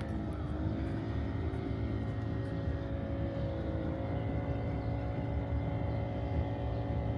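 Motorboat engine running steadily: an even, droning hum whose pitch shifts slightly about half a second in.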